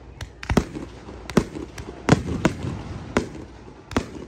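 Aerial fireworks going off: about eight sharp bangs at uneven intervals, each with a short echoing tail. The loudest comes about two seconds in.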